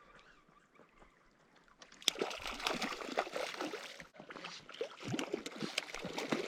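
Water splashing and dripping in quick, irregular bursts, starting about two seconds in, as a hooked cutthroat trout thrashes at the surface while it is landed.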